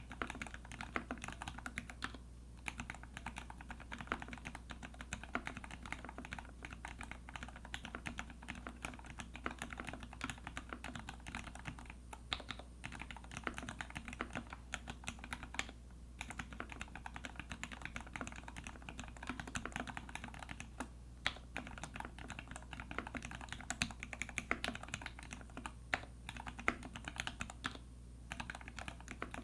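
Fast, continuous typing on a TX Keyboard EO87 mechanical keyboard with lubed Gateron Ink Black linear switches, a brass plate and GMK keycaps. There are brief pauses in the typing a few times.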